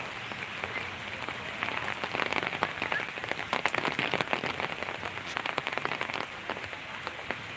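Rain falling steadily, with a spell of heavier drops pattering close by through the middle.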